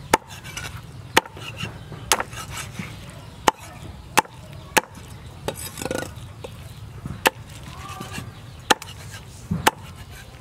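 Meat cleaver chopping roast pork on a round wooden chopping board: about ten sharp chops, roughly one a second and unevenly spaced.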